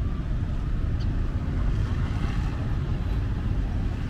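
Wind rumbling on the microphone over the steady noise of street traffic, with motorbikes and tuk-tuks passing.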